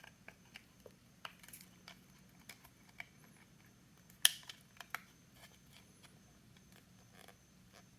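Light, scattered clicks and taps of small plastic parts being handled as a replacement battery is fitted into a headlight battery pack, with one sharper click about four seconds in.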